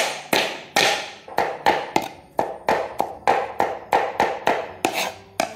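Knife chopping on a cutting board in a steady rhythm, about three to four sharp strokes a second, each with a short ringing tail.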